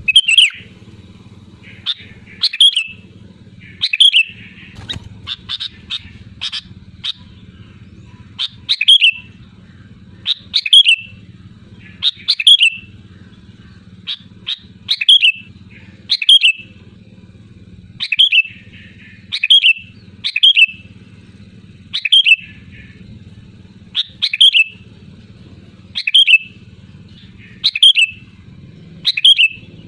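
Sooty-headed bulbul singing loud, short phrases, each with a quick falling sweep, repeated about every one to two seconds over a low steady hum.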